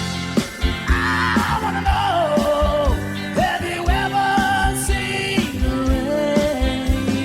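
Live rock band playing, with a steady drum beat under a lead melody line that bends and slides in pitch with vibrato.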